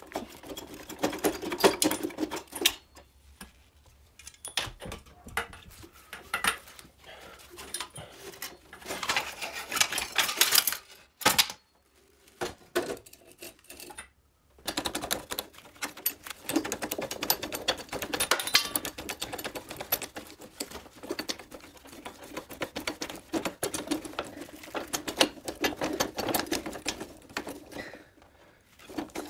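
Rapid metallic clicking and clatter from hand tools working on motorcycle parts, in runs of several seconds broken by short pauses.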